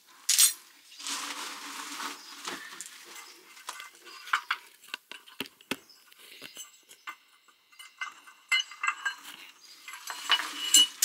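Metal clinks and knocks from a van's spare-wheel winch cable, its cradle and a steel wheel brace as the spare wheel is unhooked and pulled out from under the van, with scraping noise early on and again near the end.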